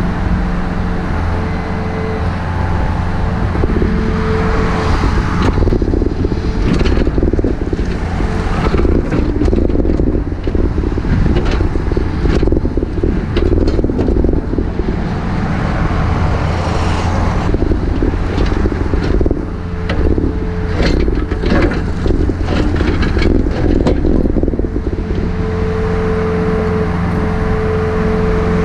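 Takeuchi TB153FR compact excavator running steadily. Through the middle of the stretch there is repeated scraping, crunching and knocking, typical of the bucket digging into soil and broken sidewalk.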